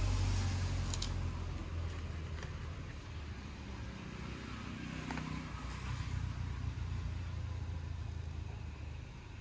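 Steady low rumble with faint handling sounds of unboxing: a few light clicks and rustles as a keyboard is set down and a coiled Lightning-to-USB cable is lifted out of its cardboard tray.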